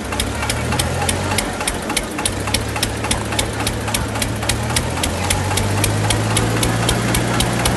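Diesel tractor engines running hard, with a steady low hum and an even, rapid knocking of about five sharp clicks a second; the tractors are chained together pulling against each other.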